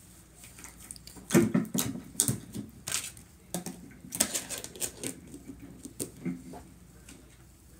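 A clear plastic lid is pressed down onto a tub of slime and the tub is handled, giving a string of irregular plastic clicks and knocks. The loudest comes about a second and a half in.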